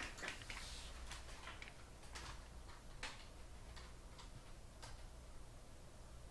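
Faint, irregular light clicks and a short rustle of trading cards and card packaging being handled, over a steady low hum.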